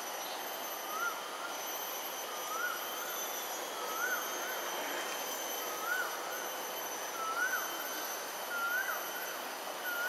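An animal call repeated in a regular series: one short note that rises and falls, about every one and a half seconds, each a little higher than the last. Under it runs a steady background rush.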